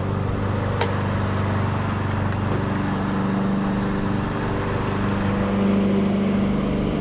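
A motor running steadily, with one short sharp click about a second in.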